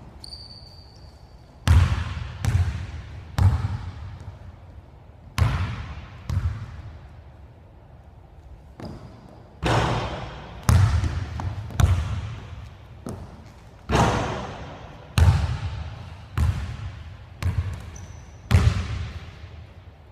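Basketball bouncing on a hardwood gym floor: irregular single bounces and short runs of dribbles, each followed by the hall's echo. A couple of brief high squeaks come near the start and near the end.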